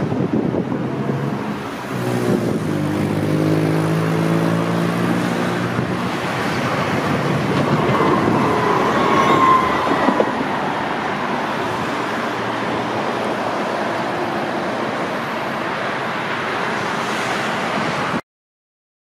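Street traffic noise with a passing vehicle's motor hum, heard as several steady pitches a few seconds in. A brief high squeal comes about halfway through, then steady road noise that cuts off suddenly shortly before the end.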